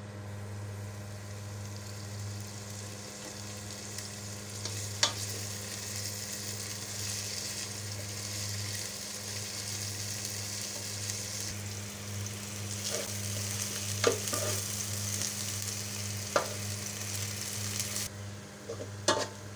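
Sliced onions sizzling in hot oil in a steel pot as they fry toward light brown, with a few clinks of a stirring spoon against the pot. Near the end the sizzle drops away and the spoon taps and scrapes several times in quick succession.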